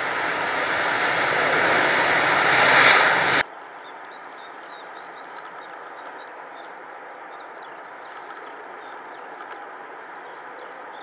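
Jet engines of a Delta Boeing 767-400ER, loud and growing louder for about three seconds, then cut off abruptly. After that comes the quieter, steady rumble of the 767 on final approach, with faint high chirping over it.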